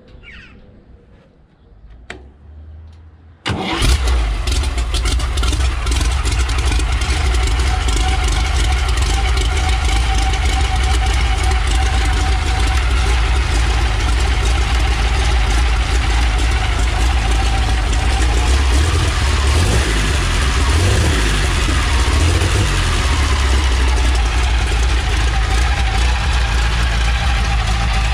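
Aero engine in a vintage car chassis starting: a short low churn of cranking, then about three and a half seconds in it catches suddenly and runs loud and steady. Its pitch rises and falls briefly about two thirds of the way through.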